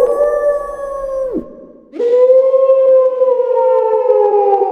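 A man imitating a wolf howl by voicing through a paper tube. There are two long howls: the first ends after about a second and a half with a sudden drop in pitch, and the second starts about two seconds in, held and slowly sliding down.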